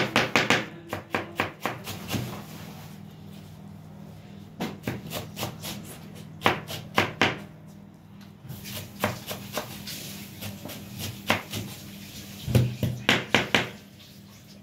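Kitchen knife chopping fresh parsley on a wooden cutting board: runs of quick knocks of the blade on the board, with short pauses between runs, stopping shortly before the end.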